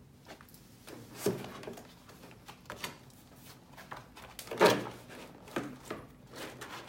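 Sheet music in a folder being handled and set on a digital piano's music rest: a few knocks and rustles, the loudest about four and a half seconds in.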